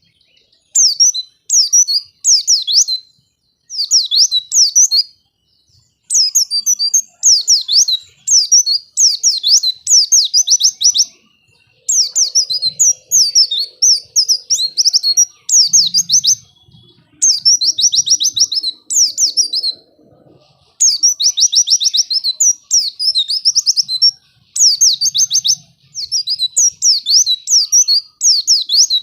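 White-eye (pleci) singing: rapid, high, sweeping chirps in phrases of one to two seconds, repeated over and over with brief pauses between them. It is a lure song used to prompt other white-eyes to sing.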